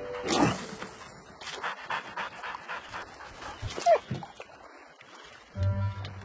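Animated dog's vocal sounds: a quick run of panting breaths, then a short falling whine about four seconds in.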